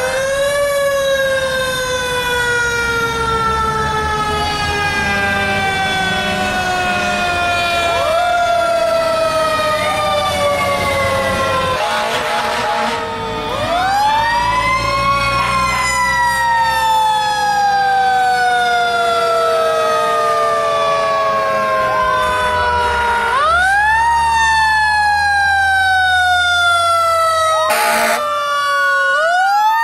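Fire engine sirens, several overlapping, each winding up quickly and then falling slowly in pitch over several seconds, again and again. The low rumble of a passing fire truck's engine grows in the second half, and a brief sharp sound comes near the end.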